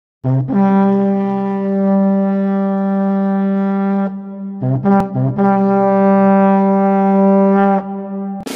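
Intro music played on a brass horn: two long held low notes, each led in by a few short notes.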